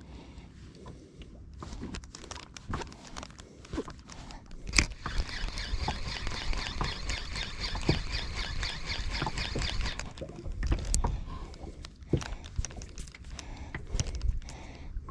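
Spinning reel cranked fast for several seconds during a jigging retrieve, a rapid fine whirring that starts with a sharp click about five seconds in and stops about ten seconds in. Around it are scattered knocks and clicks from handling the rod and the boat, over a low rumble of wind and water.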